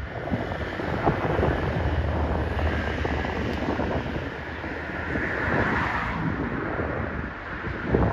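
Wind buffeting the microphone: a rough, fluctuating rush with irregular low rumbling.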